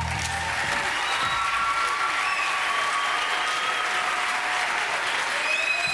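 Audience applauding at the end of a song, with voices calling out over the clapping.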